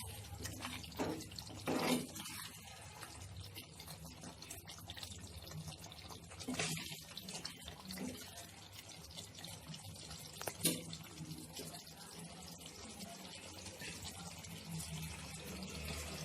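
Thick chicken gravy simmering in a pan on the stove, a soft bubbling with a steady low hum under it, left on the heat to thicken. A few brief knocks come through, near 2, 7 and 11 seconds.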